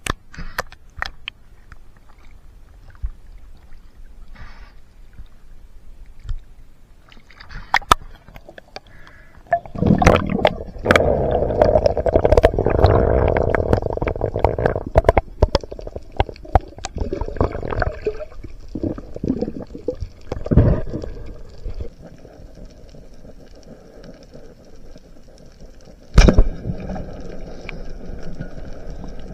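Water splashing and gurgling around an action camera in its waterproof housing, at and just under the sea surface, with scattered sharp knocks and clicks. A louder stretch of churning water in the middle, and one hard knock near the end.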